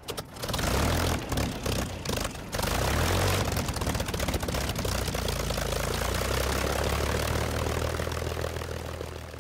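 Propeller aircraft's piston engine running, with a few short breaks in the sound in the first couple of seconds, then steady and starting to fade near the end.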